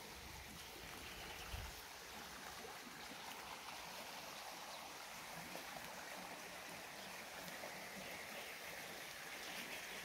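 Shallow rocky stream flowing steadily, a faint even rush of water, with one low thump about one and a half seconds in.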